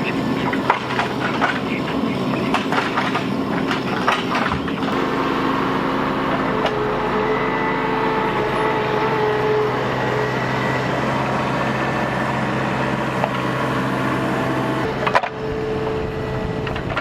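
Bobcat mini excavator's diesel engine running steadily while digging a trench, with knocks and scrapes from the bucket in the first few seconds and again near the end. A higher steady whine rises over the engine from about seven to eleven seconds in.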